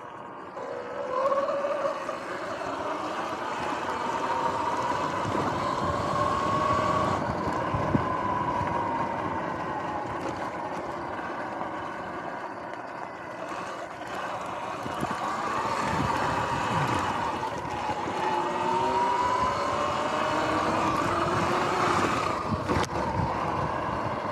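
Electric dirt bike's motor whining as it is ridden, the pitch rising and falling slowly with speed, over steady tyre and wind noise. A sharp knock comes about eight seconds in and another near the end.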